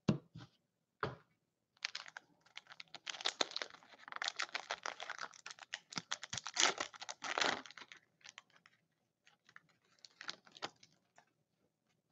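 Foil wrapper of a 2015-16 Fleer Showcase hockey card pack being torn open and crinkled by hand: a dense run of crackling from about two seconds in until about eight seconds, then a few lighter crinkles and taps.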